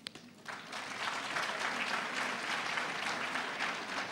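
Audience applauding, the clapping swelling about half a second in and then holding steady.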